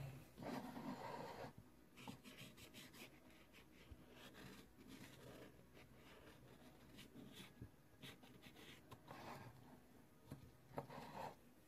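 Faint scratching of a marker colouring on a canvas in short strokes, strongest in the first second and a half.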